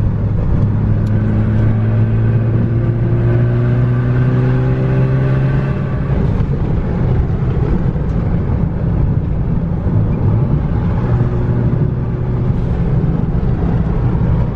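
Car engine running under load, its pitch climbing slowly for about six seconds before settling into a steady drone, over a haze of road or wind noise.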